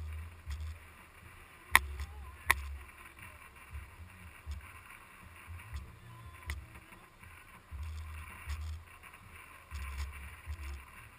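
Wind buffeting a camera mounted on the outside of an SUV driving across sand dunes: a steady hiss with low gusty rumbles that come and go. About two seconds in there are two sharp knocks less than a second apart.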